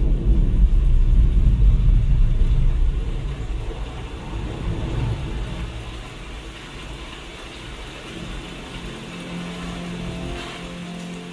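Deep rolling thunder rumble played back through a Klipsch Flexus Core 200 home-theatre soundbar and subwoofer, fading over the first few seconds into quieter rain falling on forest foliage. Low, steady musical tones come in near the end.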